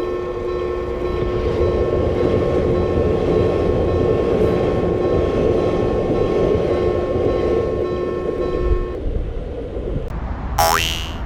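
Electric train running past: a steady hum with a few held tones over rolling rumble, which stops about nine seconds in. Shortly before the end, a brief high squeal that falls in pitch.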